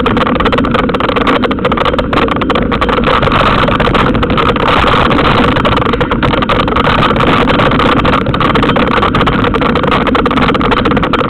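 Constant wind rush and rumble on the microphone of a camera riding along on a moving bicycle, with dense rattling and knocks as the bike jolts over a rough gravel trail.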